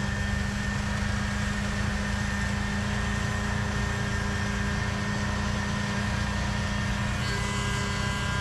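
A home-built snowblower on a backhoe, powered by its own snowmobile engine, running steadily with an even engine drone that holds one pitch.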